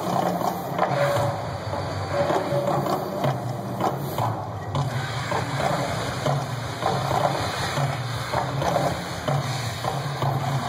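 Mirage volcano show eruption: a dense, noisy wash of fire and water effects over low pulses that come in a loose rhythm, from the show's soundtrack mixed with the gas fireballs and fountain spray.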